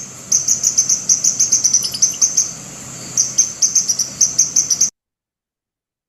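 Red squirrel giving rapid high-pitched alarm squeaks, about seven a second, with a short break after about two seconds; the series stops abruptly about five seconds in.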